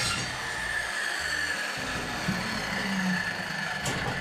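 Corded circular saw finishing a cut through a sheathing panel, then its blade spinning down with a steady whine. A knock near the end as the saw is set down on the panel.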